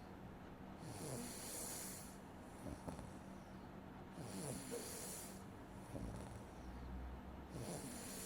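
A person snoring in their sleep, picked up close on a streaming microphone: about three slow breaths, each a hiss with a low snore under it, roughly one every three seconds.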